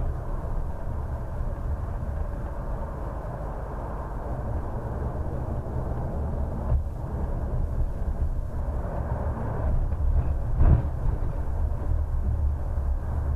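Steady low rumble of a coach bus on the move, heard from the driver's seat: engine and road noise. A single short thump comes about two-thirds of the way through.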